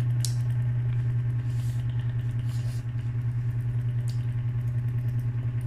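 A steady low mechanical hum with a fast, even flutter, with a few faint clicks over it.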